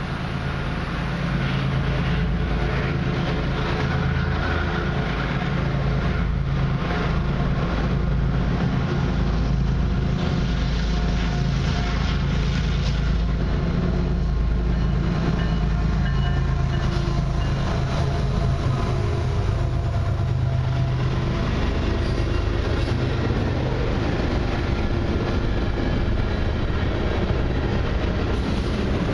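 Freight train passing close by: the diesel locomotives' engines run steadily under power, and about twenty seconds in the sound gives way to the rumble and clack of freight cars rolling over the rails.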